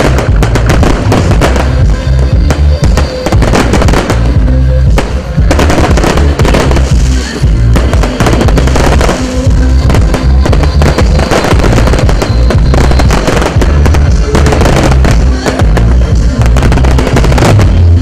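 Fireworks display: a rapid, continuous barrage of bangs and crackling. Loud music with a heavy bass beat plays underneath.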